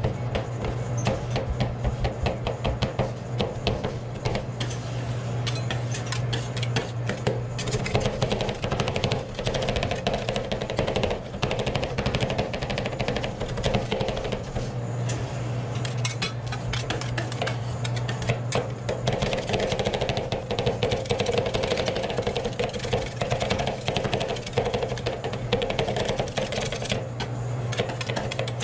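Metal spatulas chopping rapidly against a frozen steel ice cream plate, cutting an oatmeal creme pie into the cream base: a dense run of fast metallic clacks over a steady low hum.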